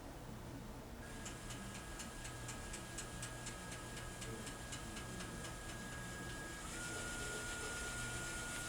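AVIT-DT automated fiber-optic inspection and cleaning machine running its cycle: a steady high motor whine with rapid, even ticking, about four ticks a second. Near the end the ticking stops and the whine drops to a slightly lower steady tone.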